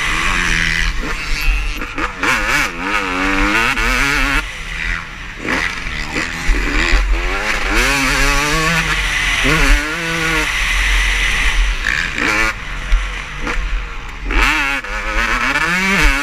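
Motocross bikes racing on the track, several engines revving up and down at once in quick rises and falls of pitch.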